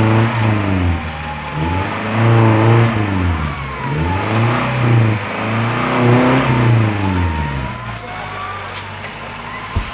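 Off-road 4x4's engine revved in repeated bursts while climbing a muddy slope, its pitch rising and falling about four times before settling to a lower, steadier run near the end. A short sharp knock comes just before the end.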